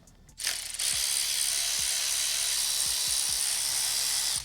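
Compressed-air tool running with a steady hiss for about four seconds, starting about half a second in and cutting off sharply.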